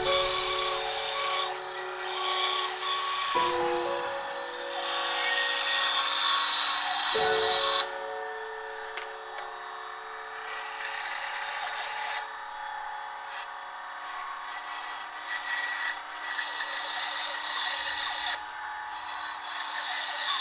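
Band saw running and cutting through wooden boards, heard under background music. The loud cutting noise drops off about eight seconds in, then continues more lightly in patches.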